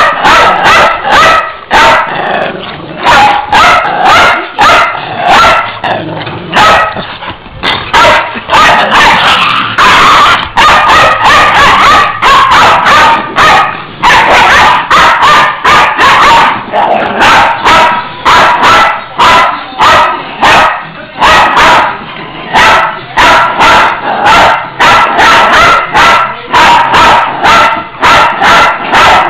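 Small pet dogs barking loudly and rapidly, two or three barks a second with hardly a break: excited play barking while chasing a laser pointer's dot.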